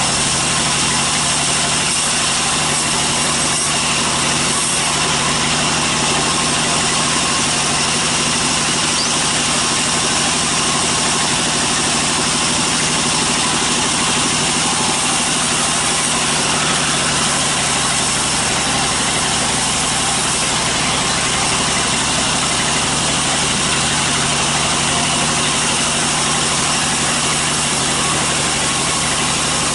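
Large vertical band sawmill running steadily: a constant mechanical drone with hiss that does not change in pitch or level.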